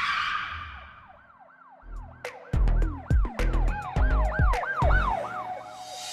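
A siren wail rising and falling in quick repeated sweeps, about three a second, with heavy bass hits joining about two seconds in.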